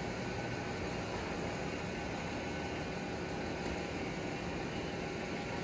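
Steady background noise: an even hiss with a low hum under it, unchanging throughout.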